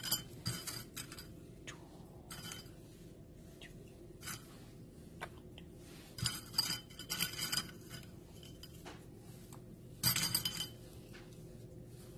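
Kitchen handling sounds as pretzels are picked up and set on brownie batter in a metal baking pan: scattered light clicks and clinks, with two short, louder, noisier stretches about six and ten seconds in.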